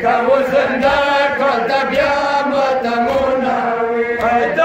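Voices chanting a nohay, a Shia mourning lament, in long held melodic lines.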